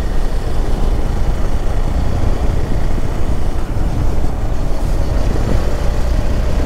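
Hero Xpulse 200 4V motorcycle being ridden, its single-cylinder engine running under heavy, steady wind noise on the microphone.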